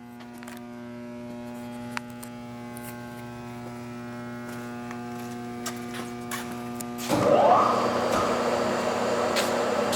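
The Geminis GE-650 lathe's 11 kW three-phase motor hums steadily at a fixed pitch, creeping louder. About seven seconds in, a much louder whir joins as the spindle and gearing run.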